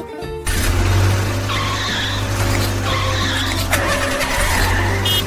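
Cartoon engine sound effect for an animated toy school bus driving, a steady low engine drone with bursts of tyre-skid noise about a second and a half in and again around three to four seconds in.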